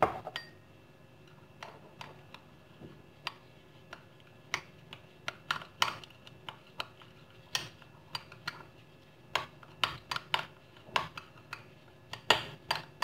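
Metal teaspoon clinking and scraping against a small ceramic bowl while stirring ground chickpeas into a liquid. The ticks are sharp and irregular, with the loudest near the end.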